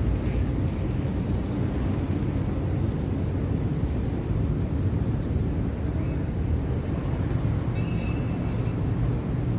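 Steady low outdoor rumble, wind on the microphone or distant traffic, with no distinct events. A few faint high tones come in near the end.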